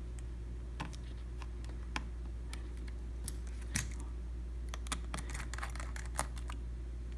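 Light clicks and scratches of a small tool prying at the battery connector on a MacBook Pro logic board as the battery is disconnected, scattered and busiest about five to six seconds in, over a steady low hum.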